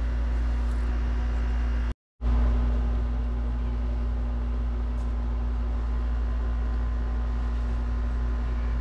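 Steady low mechanical hum with a few steady tones over it. It drops out completely for a moment about two seconds in, then carries on unchanged.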